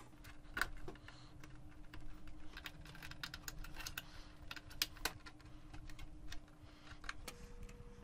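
Light, scattered clicks of PC power and data cable connectors and cables being handled and plugged in inside a steel PC case, along with a faint steady tone that steps higher near the end.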